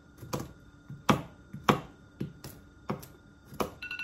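Kitchen knife coarsely chopping toasted walnuts and almonds on a cutting board: a run of sharp knocks of the blade on the board, about two a second and unevenly spaced.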